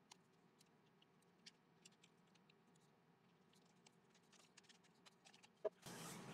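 Near silence with faint scattered clicks and taps as the Crush Grind mechanism is fitted into the wooden ash peppermill body by hand. Near the end, one louder knock as the wooden mill is set down on the bench board.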